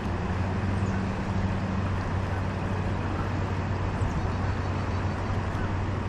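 Steady rushing of a fast-flowing river current, with a low rumble underneath.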